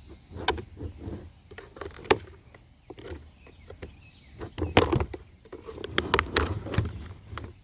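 Irregular plastic clicks and knocks from the sweeper's plastic housing being handled and pried apart at its snap-fit clips, with the sharpest knocks about five and six and a half seconds in.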